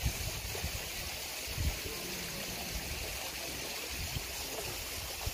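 Mountain spring water running steadily, a constant rushing hiss, with a few dull low bumps near the start and about a second and a half in.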